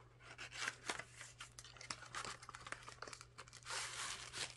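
Cardboard box parts being handled, with small scrapes and clicks, then a plastic wrapper crinkling as a bagged cable is pulled out, loudest about four seconds in.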